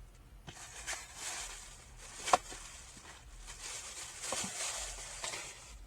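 Rustling and handling of small items, with a few sharp clicks and one louder knock a little over two seconds in.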